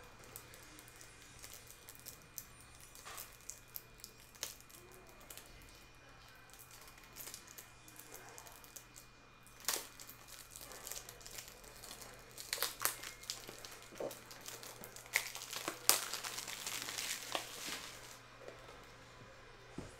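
Crinkling and tearing of a foil trading-card pack wrapper and card packaging being handled, in scattered clicks and rustles that grow busier and louder in the last third, with the sharpest snaps about three-quarters of the way in.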